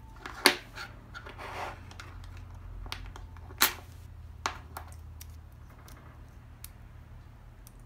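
Small sharp clicks and taps of a thin steel chainsaw brake band being handled and hooked onto the chain brake lever linkage, the loudest click about three and a half seconds in. A steady low hum runs underneath.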